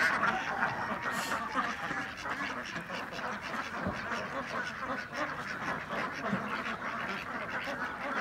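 A large flock of domestic ducks quacking continuously, with many calls overlapping into a steady chatter.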